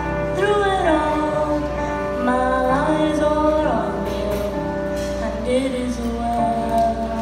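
A young girl singing a slow song into a microphone over a recorded accompaniment, holding long notes and sliding between pitches.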